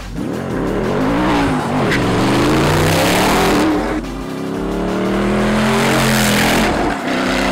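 Gumpert Apollo's twin-turbo V8 at full throttle, its pitch climbing and dipping at each gear change. It breaks off suddenly about four seconds in, then a second hard run rises again as the car comes past.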